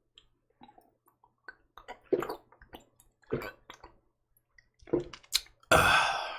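A person drinking soju straight from the bottle: a few separate wet gulps and swallows, then a loud breathy exhale near the end.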